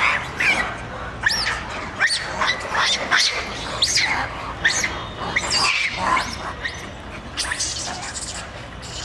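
Many short, high chirping animal calls overlapping, several a second, each rising and falling in pitch, over a steady low outdoor rumble.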